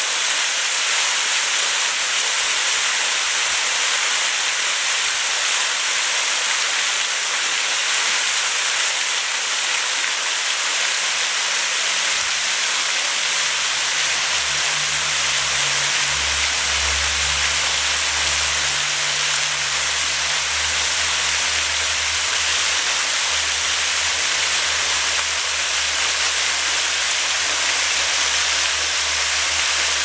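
Small waterfall pouring as a thin curtain over a rock ledge and splashing into a shallow pool: a steady hiss of falling water. A low hum joins from a little under halfway through.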